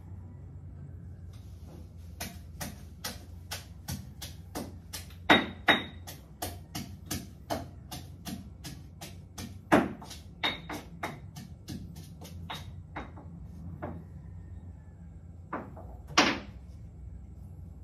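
Knife chopping on a cutting board: a run of quick, even strokes, about three a second, with a few sharper clacks, pausing about thirteen seconds in before two last strokes near the end.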